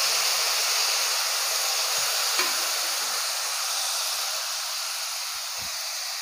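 Soaked rice sevai sizzling in hot oil in a kadai, the sizzle slowly dying down, with a single small clink about two and a half seconds in.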